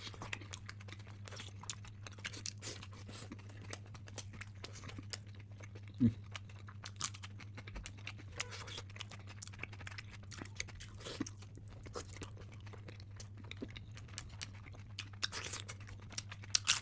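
Close-miked mukbang eating: mouth chewing and crunching food, with many small wet clicks and smacks, over a steady low electrical hum. One louder thump about six seconds in.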